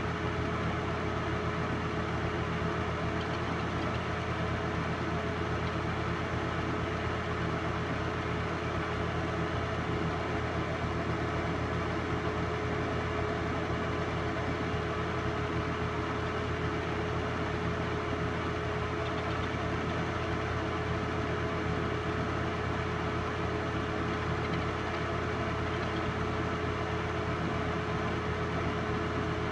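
Film projector running: a steady motor and fan hum with a constant whine over it.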